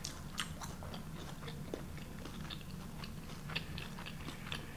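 A person chewing a mouthful of fried avocado egg roll, with soft, scattered clicks and light crackles of the crisp wrapper throughout.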